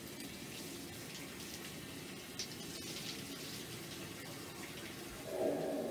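Bath water scooped with a plastic bowl and poured over a dog in a bathtub, splashing steadily; about five seconds in, a louder, fuller gush of water starts.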